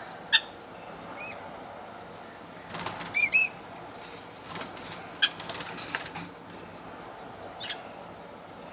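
Pet budgerigars giving short, scattered chirps, with a burst of wing flapping about three seconds in.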